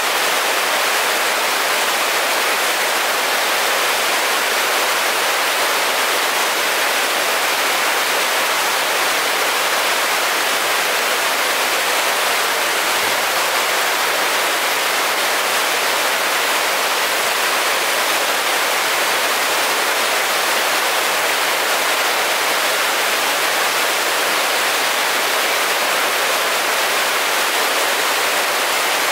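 Rushing water, loud and unchanging, like water pouring down a waterfall or spillway.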